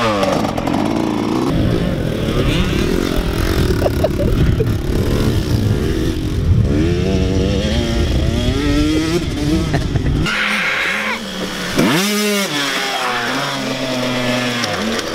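Small motocross dirt bike engines revving hard, the pitch climbing and dropping over and over as the bikes accelerate and shift. Near the end one engine gives a sharp rise and fall in pitch.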